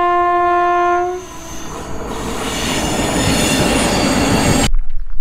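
Indian Railways train horn sounding one steady chord for about a second, then the noise of the passing train growing louder, cut off suddenly near the end.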